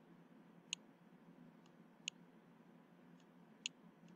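Computer mouse clicking: three sharp single clicks about a second and a half apart, with a couple of fainter clicks between, over near-silent room tone.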